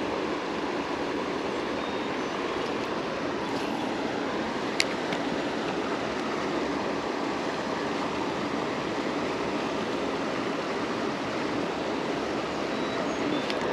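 Steady rush of running creek water. A single sharp click comes about five seconds in.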